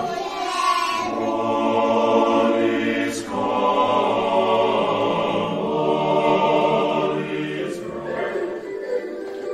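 Choir singing long held chords, the chord changing about three seconds in and the singing thinning out near the end.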